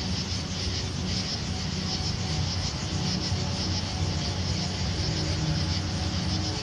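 Steady chorus of night insects, a shrill pulsing shimmer, over low sustained tones.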